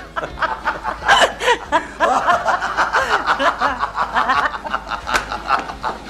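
A man and a woman laughing helplessly: a long fit of quick, repeated chuckles that thickens about two seconds in and runs on without a break.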